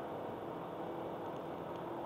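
Honda Accord Type-S wagon's engine running steadily, with tyre and road noise from the wet track, heard inside the cabin.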